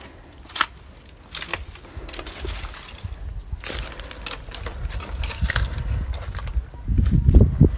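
Footsteps crunching through dry leaves, twigs and weeds: scattered crackles and snaps, with a low rumble on the microphone that grows and is loudest near the end.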